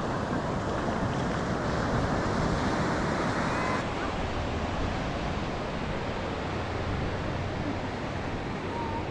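Ocean surf washing onto a sandy beach in a steady hiss, with wind buffeting the microphone.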